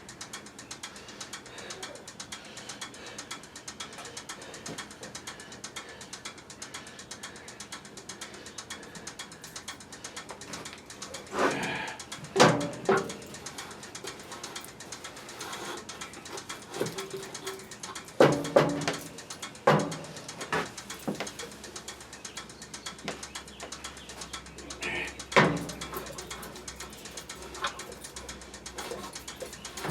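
Scattered knocks and clatters from hand work, in short clusters about eleven to thirteen seconds in, around eighteen to twenty seconds, and once more near twenty-five seconds, over a quiet background with a brief low cooing call.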